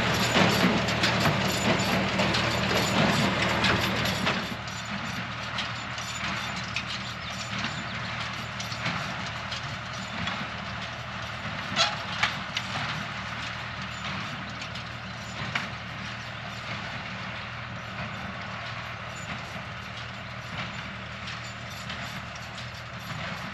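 John Deere tractor engine running steadily while driving a John Deere 24T square baler, with the baler's mechanism clattering and knocking throughout and a few sharper clacks near the middle. The sound is louder for the first four seconds or so, then drops and stays lower.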